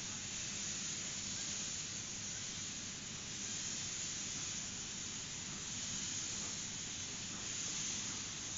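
Small narrow-gauge steam locomotive standing and letting off steam with a steady hiss.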